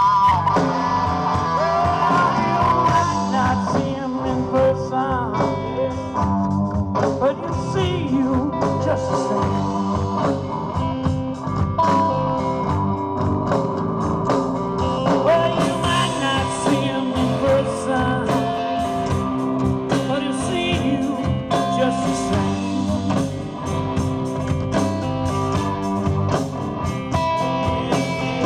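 Live blues-rock band playing: electric guitar through a Marshall amp over bass and drums, the lead guitar bending notes.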